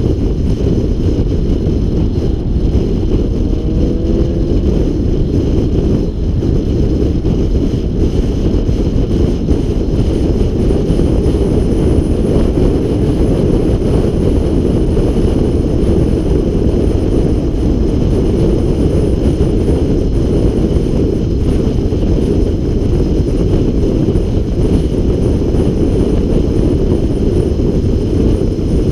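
Car driving fast on a race track, heard through a camera mounted outside on the hood: a loud, steady rumble of wind and road noise, with no clear engine note above it.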